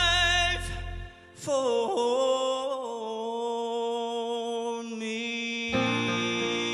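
Southern gospel music: a male singer holds a long note with vibrato, then, after a short dip, slides into a second long held note. About two-thirds of the way through, piano and acoustic guitar chords come in.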